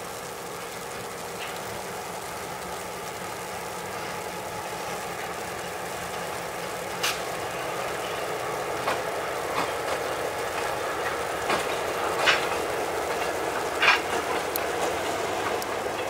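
Diesel freight train crossing a railroad bridge: the locomotive's engine runs steadily and grows slowly louder, with a series of sharp clanks from about seven seconds in.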